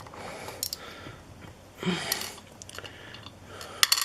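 Small clicks and scrapes of a flathead screwdriver and metal lock parts being handled while a lock cylinder is taken apart, with a short rasping scrape about two seconds in and two sharp clicks near the end.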